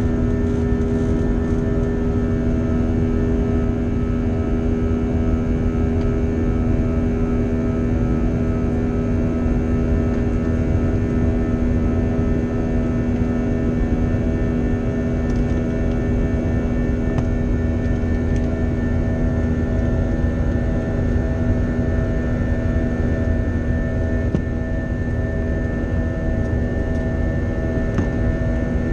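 Airbus A321 jet engines and airflow heard inside the cabin during the climb after takeoff: a steady, loud roar with a hum of several held tones on top.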